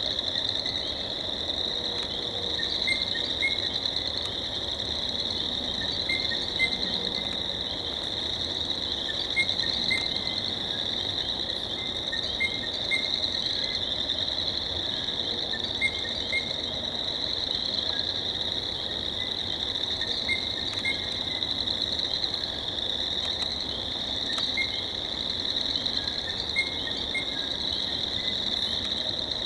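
A dense, steady chorus of high-pitched animal calls, with short louder chirps breaking through every few seconds.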